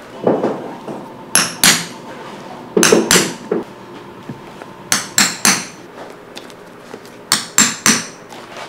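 A small hammer striking a hand punch through layered tent-fabric wallet pieces resting on a work pad. Short, sharp taps come in quick pairs and threes, about a dozen in all.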